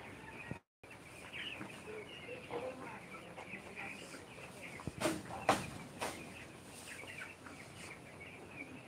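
A large flock of young broiler chickens peeping and chirping steadily. Two sharper, louder sounds come about five seconds in, half a second apart, and the audio cuts out briefly near the start.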